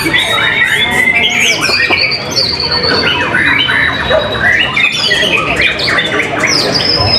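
White-rumped shamas singing loudly in competition: an unbroken, dense stream of fast whistled slurs, trills and harsh squawking notes, several phrases overlapping at once.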